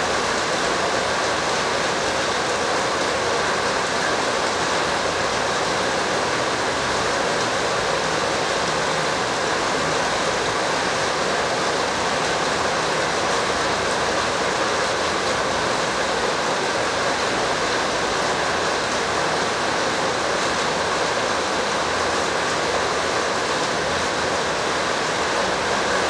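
Steady, even rushing noise like a hiss of running water, unchanging in level throughout.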